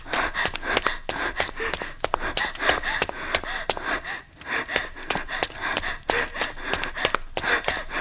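A woman panting and gasping hard as she runs, with quick, uneven footfalls on a hard floor.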